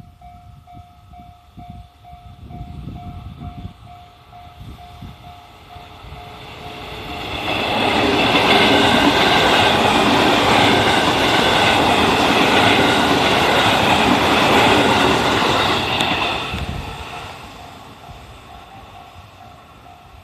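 A Japanese level-crossing warning bell rings in quick repeated dings. Then a JR 313 series electric multiple unit passes close by, loud for about nine seconds, and its noise fades away as the crossing bell is heard again near the end.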